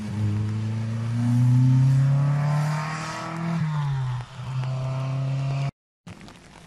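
Rally car engine accelerating hard away along the stage, the revs climbing and dropping back at each gear change. Near the end the sound cuts off abruptly, and fainter outdoor sound follows.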